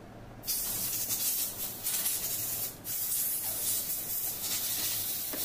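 Aerosol spray hissing in a long steady burst, with a short break about halfway through.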